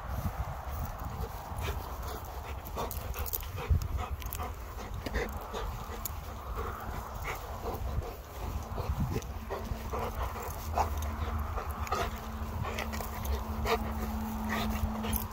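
A dog panting close by, with wind rumbling on the microphone. A steady low hum comes in about six seconds in.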